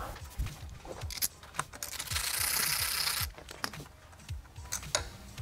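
Hand tool working a screw out of a metal cable-guide clamp on a motorcycle frame: scattered light metallic clicks and taps, with a denser, continuous stretch lasting about a second near the middle.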